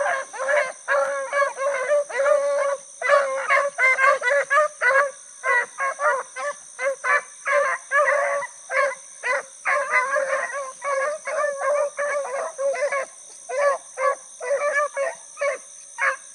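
A pack of beagles giving tongue while running a rabbit on its track: many short barks in quick, overlapping succession, with a few longer drawn-out bawls.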